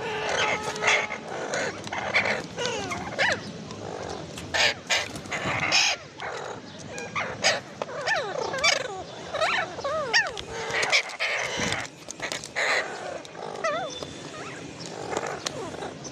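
Green parakeet calling over and over: harsh squawks mixed with short chirps that sweep up and down in pitch, with a brief lull about eleven seconds in.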